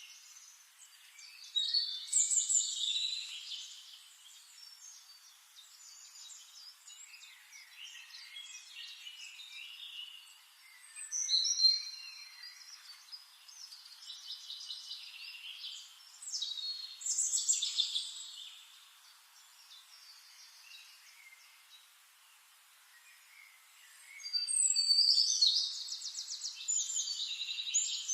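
Several wild songbirds singing in a forest, in high-pitched bouts of chirps, whistled notes and rapid trills, with quieter gaps between them and a long fast trill near the end.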